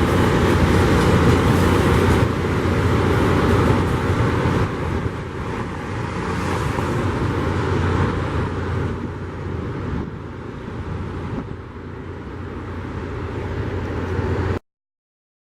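Loram rail grinder train working the track: a loud, harsh, steady grinding noise over a low engine hum. It fades gradually, then cuts off suddenly near the end.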